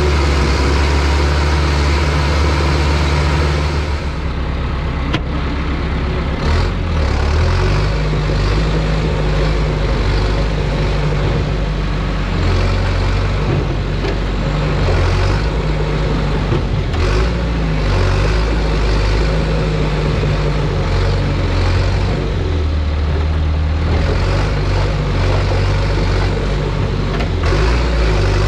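Bulldozer's diesel engine running hard while pushing logs, its pitch rising and falling again and again as the load changes, with scattered clanks from the machine.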